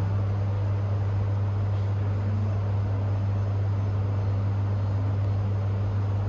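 Steady, unchanging low hum with a constant rumble of background noise, like running machinery or engine drone.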